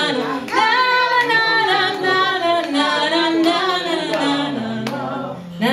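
A woman singing a slow ballad in Swedish, a melodic line with long held notes.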